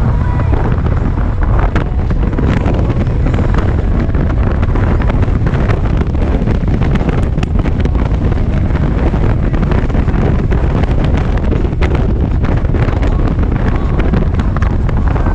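Steady wind noise buffeting the camera microphone on a moving Harley-Davidson Ultra Limited motorcycle, over the low, even sound of its V-twin engine cruising.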